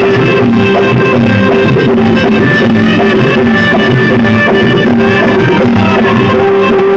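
Loud music, a remix track played over a DJ sound system, at a steady, even level.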